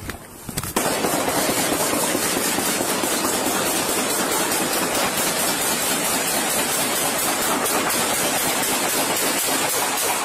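A long run of rapid gunshots, dozens in quick succession, starting suddenly about a second in and running on without a break.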